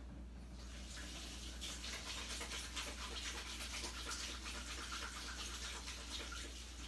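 Faint sound of a faucet running as hands are washed under it, in another room: a steady hiss of water.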